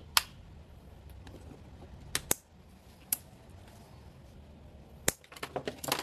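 A series of sharp clicks over a low steady hum: a single click just after the start, a pair a little after two seconds, another about a second later, one more after five seconds and a quick run of clicks near the end.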